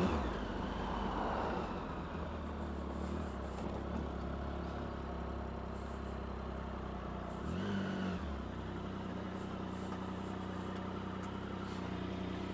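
Triumph Sprint ST 1050's three-cylinder engine running at low speed and near idle as the motorcycle rolls slowly in, with a short rise in the engine note about eight seconds in. A rushing hiss fades away over the first two seconds as the bike slows.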